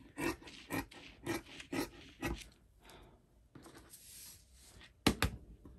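Scissors snipping through folded printed fabric and a paper pattern: a run of crisp snips about two a second, then a quieter stretch and a pair of sharp clicks about five seconds in.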